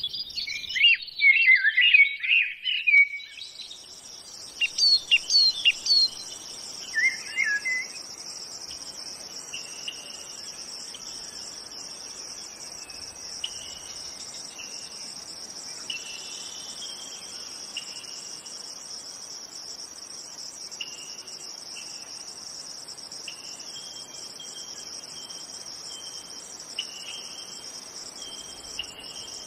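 A bird chirps rapidly for the first few seconds, with a few more short chirps a few seconds later. Under it a steady, high-pitched insect chorus sets in and runs on, broken by faint short calls every second or two.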